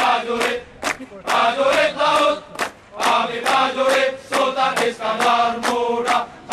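A large group of male sailors singing a march together in unison, with sharp hand claps keeping the beat about two to three times a second.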